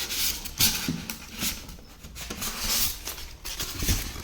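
Rustling and light knocks of packaging and a plastic lid being handled as a wet grinder's lid is unpacked.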